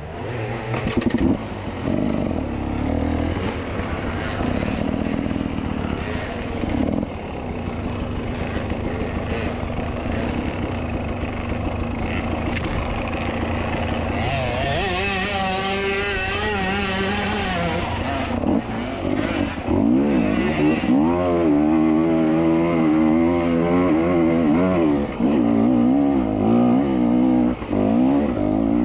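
Enduro dirt bike engine running under way, the throttle rising and falling constantly. The revs wobble quickly up and down about halfway through, and the engine gets louder for the last third.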